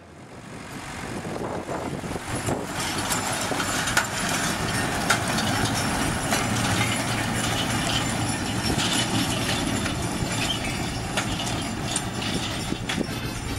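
Sonalika 90 HP tractor's diesel engine running steadily under load while it pulls a plastic-mulch laying implement, with the implement clattering and knocking. The sound fades in over the first couple of seconds.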